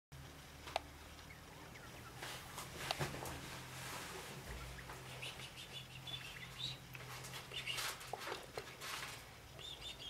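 Degus squeaking: short, high chirps in quick runs about halfway through and again near the end, over soft rustles and clicks from the paper-towel nest bedding.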